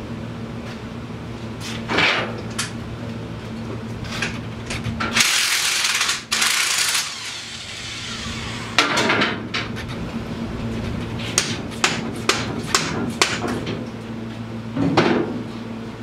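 Hand tools knocking and clicking against metal as a Polaris Scrambler ATV's rear end is worked on. There is a dense rasping burst of about two seconds near the middle and a quick run of sharp clicks later on, over a steady low hum.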